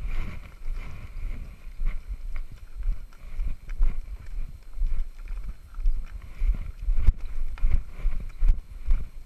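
A horse walking on a stony, gravelly trail, its hooves clopping on rock, mixed with people's footsteps on the same path: an uneven run of dull thuds and clicks.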